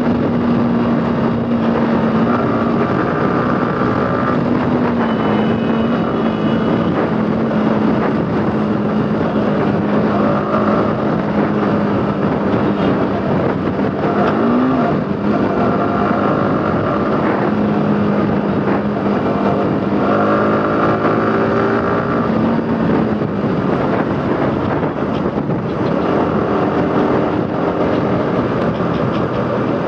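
Yamaha R15 V4's single-cylinder engine running at a steady cruise, heard from the rider's seat over steady wind and road noise. The engine note rises and falls briefly about halfway through.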